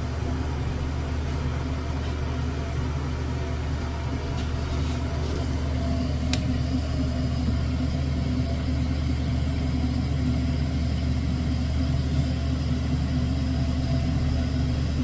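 Toilet refilling after a flush: water running through the fill valve and supply line with a steady low hum, which the plumbers put down to air in the water lines.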